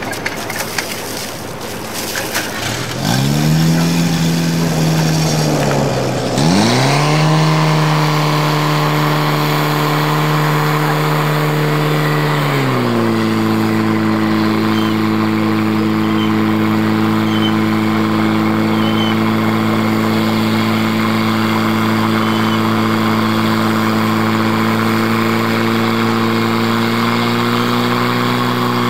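Portable fire pump's engine catching about three seconds in after some clatter, revving up, dipping briefly, then running at high steady revs. About twelve seconds in its note drops and holds lower and steady.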